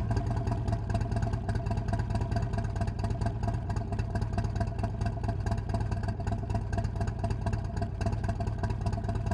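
Harley-Davidson Road King Special's Milwaukee-Eight 107 V-twin, fitted with an S&S 465 cam, idling steadily through a Fuel Moto Jackpot 2-1-2 head pipe and Street Outlaw mufflers, with even exhaust pulses.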